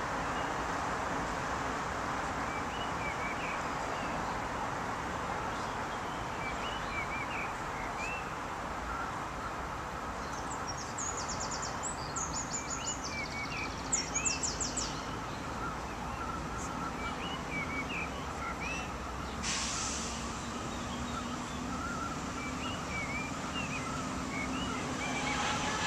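Birds chirping again and again in short rising notes over a steady background hiss, with a quick run of rapid higher calls a little before the middle. A low steady hum comes in about three quarters of the way through.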